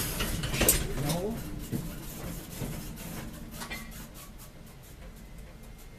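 Standing tram: a mechanical hum and rattle that fades away over the first few seconds, with a scattered run of light clicks and knocks from about two and a half to four seconds in.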